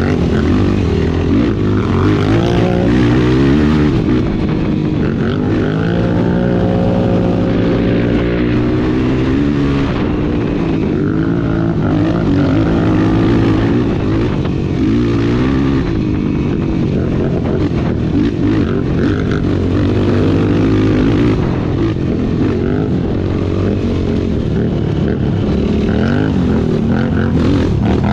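Off-road race engine heard from on board, revving continuously and rising and falling in pitch as the throttle is worked through the course, with a rough rushing noise over it.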